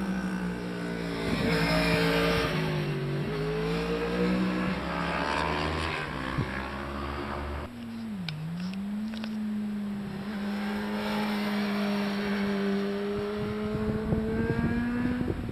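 Sport motorcycle engines lapping a race circuit, heard from trackside: the engine note falls and then climbs again in the first half. About eight seconds in the sound changes abruptly, dips, and then holds a high, steady note that climbs slightly.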